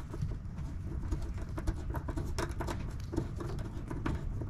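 Small L-shaped Torx key turning a Torx bolt out by hand, making light irregular clicks and scrapes over a low rumble.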